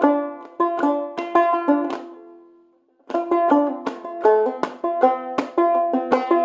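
Clawhammer-style five-string banjo in open G tuning, picking a quick melodic passage; about two seconds in a note is left ringing and dies away to silence, then the picking starts again a second later.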